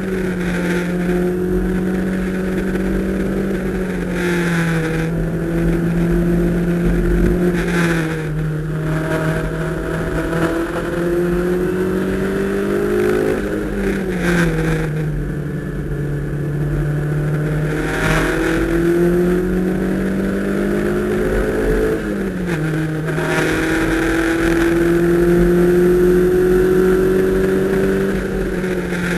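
Toyota MR2 Spyder's 1.8-litre four-cylinder engine heard from inside the cabin, lapping a race track: engine pitch climbs slowly under throttle and falls back several times as the car shifts gears and slows for corners, over road and wind noise.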